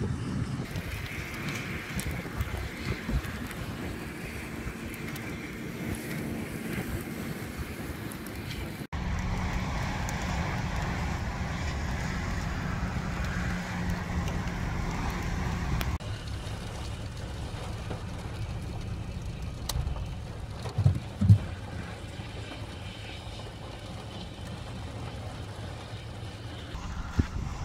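Wind blowing across the microphone outdoors, a steady low rumble and hiss that changes abruptly twice, with a few brief thumps a little past the middle.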